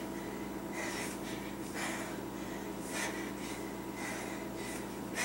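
A woman breathing hard during kettlebell swings, with a short, sharp breath about once a second in time with each swing.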